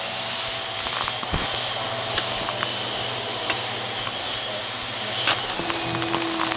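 Hart cordless stick vacuum running on carpet: a steady suction hiss over a motor hum, with scattered small crackles and ticks as debris is sucked up into the bin. A steady higher hum joins in near the end.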